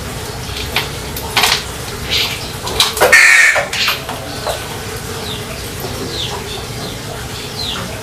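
Caged birds calling: a few short calls, then a loud harsh call about three seconds in, followed by several short, high, falling chirps in the second half.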